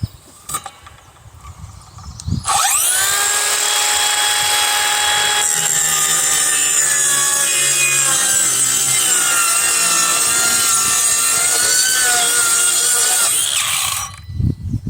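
Electric power saw starting up and cutting through a wooden board for about eleven seconds, its pitch wavering under load, then winding down near the end. A few knocks of the wood being handled come before it.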